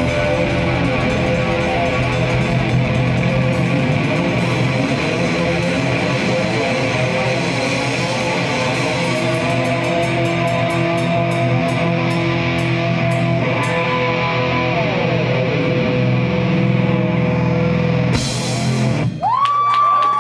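Live rock band playing loud distorted electric guitar with drums and held chords. Near the end the full band cuts off abruptly, leaving a wavering high note ringing.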